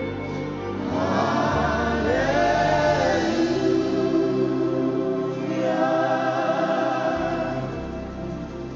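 Gospel choir singing long held notes in a slow worship song over a sustained keyboard and bass accompaniment.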